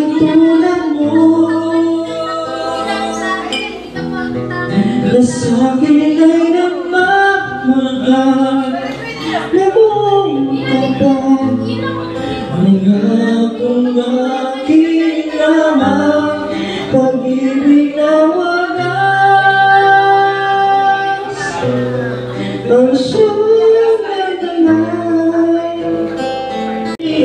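A man singing live into a microphone while strumming an acoustic guitar, one continuous song.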